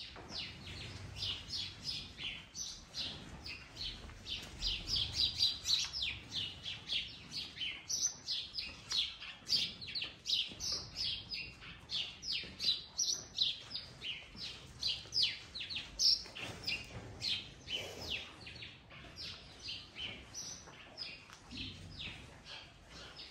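Small birds chirping busily, a fast, overlapping run of short high chirps, several a second, that carries on without a break.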